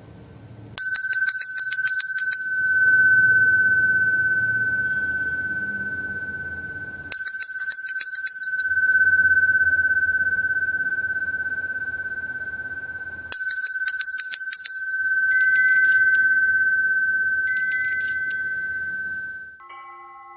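A bell rung three times, about six seconds apart. Each ring opens with a quick rattle of strikes and then holds one high tone that fades slowly. Two more quick rattling rings come near the end, then the tone cuts off suddenly and a few lower chime notes begin.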